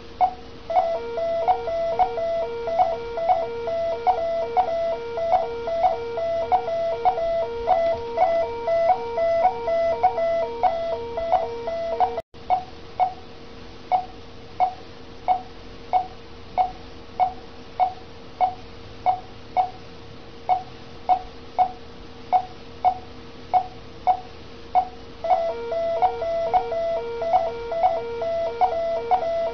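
Bedside patient monitor beeping once per heartbeat, about one and a half beeps a second, with a faster repeating alarm tone sounding over it that drops out for a stretch in the middle and comes back near the end.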